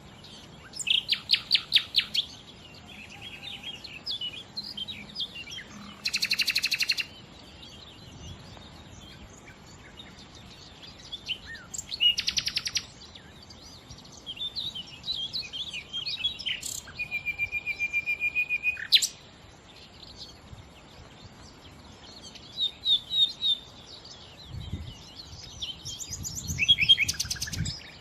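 A nightingale singing in separate phrases a few seconds apart. Each phrase is a fast run of rapidly repeated notes, some high and rattling, one a long even trill.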